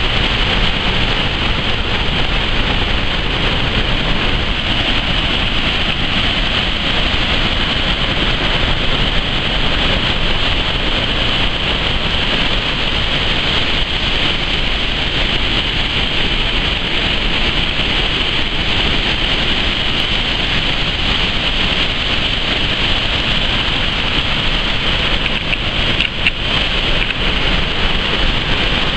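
A waterfall's falling water rushing with a steady, loud, unbroken noise.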